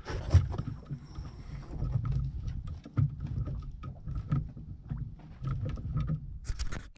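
Knocks and thumps of a person moving about on a small boat's deck, over a low rumble of wind and water. Near the end, a hand rubs against the camera.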